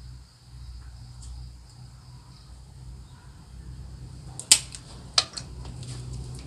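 Bonsai cutters snipping through dry dead twigs of a santigi bonsai: two sharp snaps a little under a second apart past the middle, followed by a few fainter clicks of twigs.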